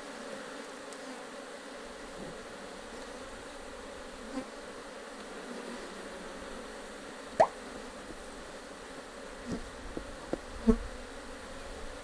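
Honeybee colony in an open hive humming steadily. A sharp click about seven seconds in and a few lighter knocks near the end come from the metal hive tool prying at the wooden frames.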